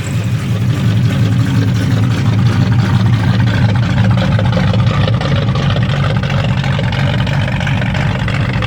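Freshly rebuilt small-block Chevy V8 of a 1985 Monte Carlo SS idling steadily with a deep rumble through headers and glass-pack mufflers. The engine, still being broken in, is running smoothly.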